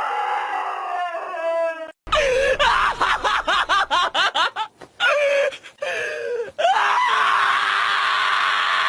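A dog giving a rapid run of high yelps, then a few drawn-out cries, ending in one long held howl.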